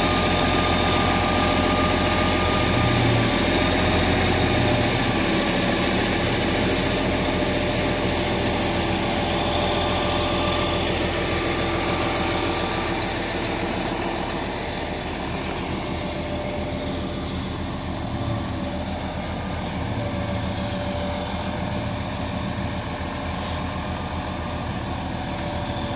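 Wheel loader's engine running steadily while it moves the old tow truck, a little quieter from about halfway through.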